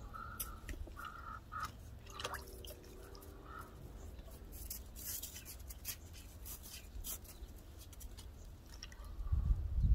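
Water dripping and lightly splashing in a plastic tub as Muscovy ducks sit and move in it, a scatter of small drips and plips. About nine seconds in, a loud low rumble comes in.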